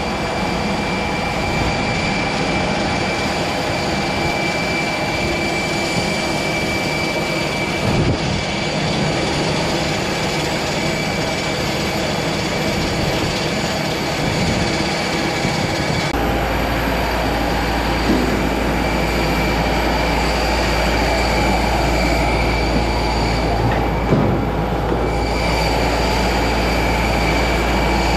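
Steady, loud noise of ground machinery around a parked airliner, with a constant high whine running through it. About halfway through, a deep low rumble joins in and stays.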